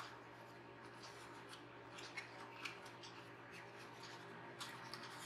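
Faint handling of a cardboard gift box and its insert: light scrapes, rustles and a few small clicks as the earbud case is worked out, over a faint steady hum.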